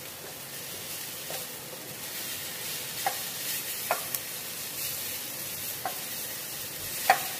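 Onions, dried red chillies, garlic, sesame seeds and tomatoes sizzling in hot oil in a non-stick pan while a wooden spatula stirs them, frying until the tomatoes soften. A handful of light knocks of the spatula against the pan, the loudest near the end.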